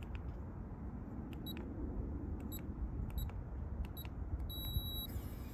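RV Lock keyless compartment handle's keypad giving a short high beep at each key press as a code is entered, then a longer beep about five seconds in.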